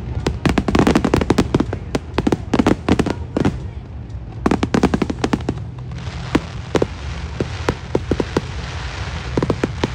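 Fireworks bursting: a dense run of sharp bangs and crackles, a brief lull about four seconds in, another cluster, then scattered single pops over a steady low hum.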